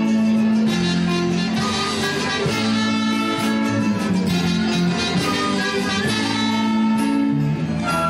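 Instrumental music led by guitars, playing held chords that change every second or two.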